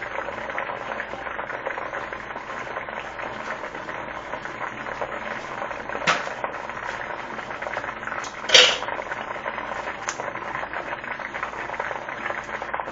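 Hot oil sizzling and crackling steadily as macaroni and cheese deep-fries in it. Two knocks are heard, about six seconds in and a louder one about two and a half seconds later.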